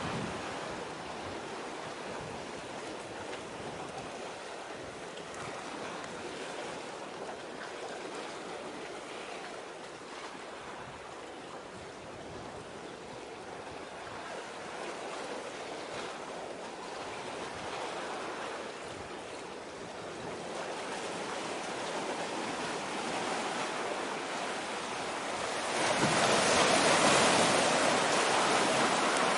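Sea surf washing in as a steady rushing hiss, swelling into a louder rush near the end.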